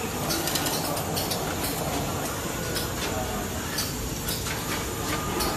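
Automatic LCD polarizer cleaning and attaching machine running: a steady mechanical hiss and hum with frequent, irregular sharp clicks and clacks from its moving parts.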